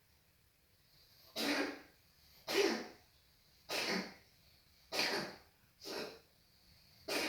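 A run of six short coughs, about one a second, beginning a little over a second in.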